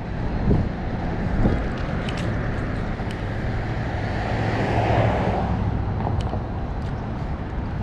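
Road traffic passing on a city street, with a pickup truck swelling loudest about five seconds in as it drives by. Wind on the microphone adds a steady rumble, and there are a couple of low thumps in the first two seconds.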